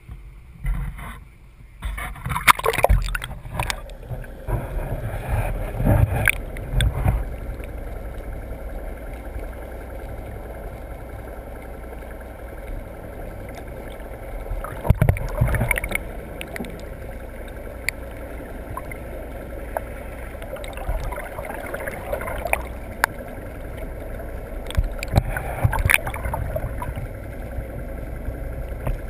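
Sea water sloshing and gurgling against a fishing boat, over a steady low rumble, with irregular louder splashes and knocks, the biggest about two to seven seconds in, about fifteen seconds in and about twenty-five seconds in.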